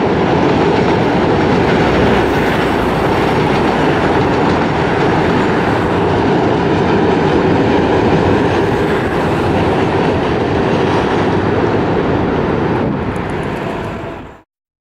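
Container wagons of a freight train rolling past with a steady clatter of wheels on the rails. The sound fades and cuts off near the end.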